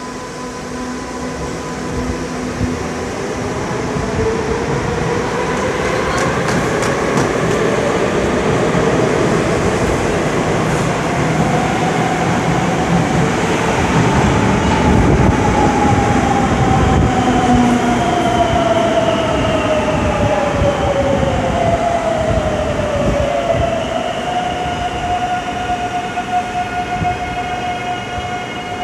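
Metro trains' electric traction motors whining over the running noise of wheels on rails, growing louder toward the middle. The whine rises in pitch as a train pulls away, then falls as a train slows, and settles to a steady tone near the end.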